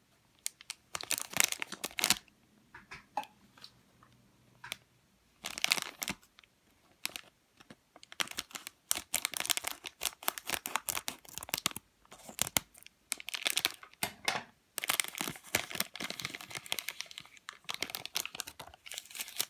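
Packaging being torn open and crinkled by hand to get a squishy toy out, in irregular bursts of crackling with short pauses between.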